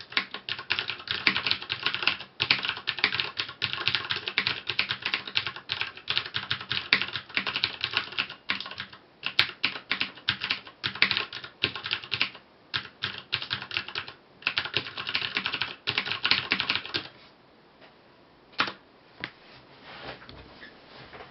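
Fast typing on a FILCO Majestouch 2 tenkeyless mechanical keyboard with clicky Cherry MX Blue switches and stock keycaps: a dense, rapid stream of keystrokes that stops about 17 seconds in, followed by a few single key presses.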